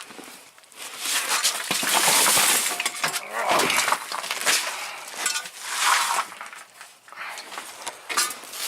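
Metal tools and loose parts clinking and clattering as they are handled and shifted on a mechanic's tool box, in irregular rattles and clicks.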